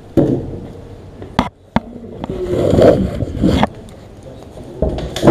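Handling noise on a camera held against the body: cloth rubbing and scraping over the microphone, with several sharp clicks and knocks and a longer rustling swell in the middle.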